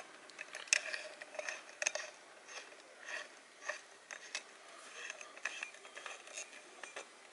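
Irregular light clicks and scraping of a hose's metal coupling being threaded by hand onto a brass water pressure regulator.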